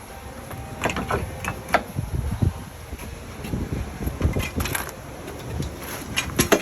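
Irregular metallic clicks and knocks of hand tools and parts while the new radiator and condenser are being bolted into place, in clusters about a second in, around the fourth second, and near the end.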